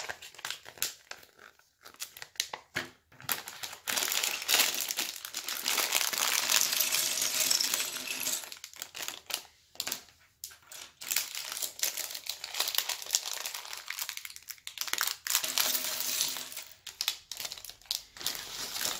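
Clear plastic LEGO parts bags crinkling as they are handled and opened, with small plastic bricks clicking and clattering onto a wooden tabletop. A few scattered clicks come first, then long stretches of crinkling.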